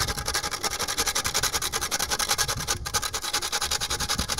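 A whole nutmeg grated on a stainless steel box grater: fast, even scraping strokes, with a brief pause about three seconds in.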